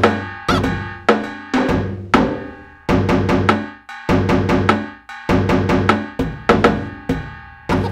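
Upbeat cartoon music: a tune on pitched instruments over a drum kit, with a strong, even beat of about two hits a second.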